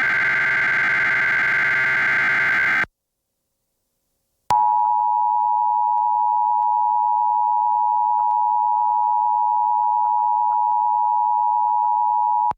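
An Emergency Alert System test from a DASDEC encoder: the last of the SAME header data bursts, a harsh digital warble lasting about three seconds, then a brief silence and the EAS attention signal, a steady two-tone 853/960 Hz tone held for about eight seconds and cutting off sharply.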